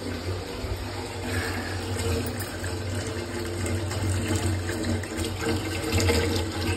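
Kitchen tap running water into an aluminium pot in a steel sink, a steady rush that grows a little louder about six seconds in, with a steady low hum underneath.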